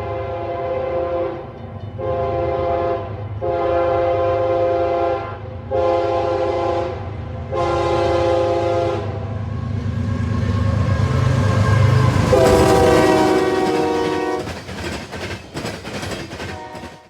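Diesel locomotive's multi-chime air horn sounding a series of blasts over the rumble of the engine. There are five blasts in the first nine seconds and a louder one about twelve seconds in. After that come rapid clicks of wheels over rail joints as the train passes.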